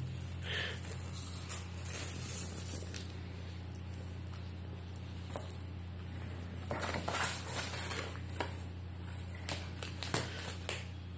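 Light irregular rustling and small clicks of a cardboard pizza box as a cat noses and licks at it, coming more often near the end, over a steady low hum.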